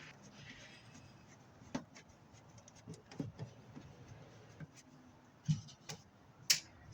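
A few scattered light clicks and knocks from hand work on a furnace's sheet-metal panel and its screws.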